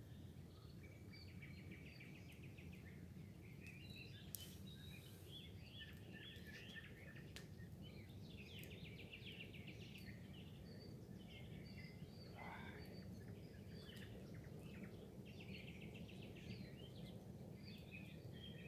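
Several small songbirds chirping and trilling in quick rattling phrases, faint, over a steady low background rush; about two thirds of the way through a single call slides up in pitch.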